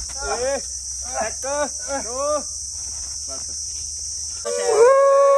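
Steady high-pitched drone of an insect chorus. Over it comes a run of short rising-and-falling cries in the first half, then a loud held wail starting near the end.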